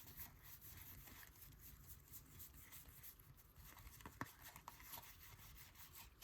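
Near silence, with faint rustling of trading cards being handled and a soft click about four seconds in.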